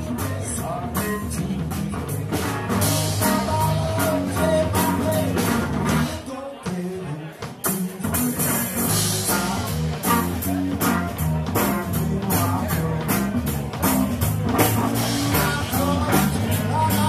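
Live rock band playing through a PA: electric guitar, electric bass and drum kit. About six seconds in the music drops almost away for a second and a half, then the full band comes back in.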